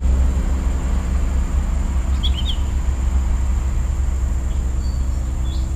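Steady low rumble with a faint hum above it, and a few short bird chirps about two seconds in and again near the end.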